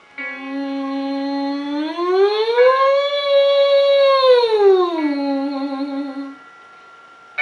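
A woman's voice doing a sirening warm-up on a closed sound, not a vowel: one sustained note that glides smoothly up about an octave, holds at the top, then glides back down to the starting pitch and stops about six seconds in.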